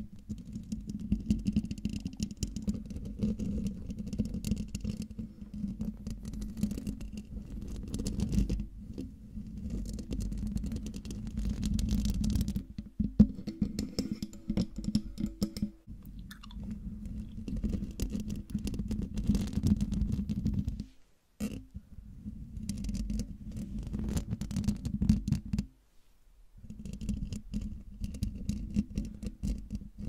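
Long fingernails scratching rapidly over a microphone's metal mesh grille, close to the capsule, making a dense, rumbly scratching that stops briefly twice in the second half.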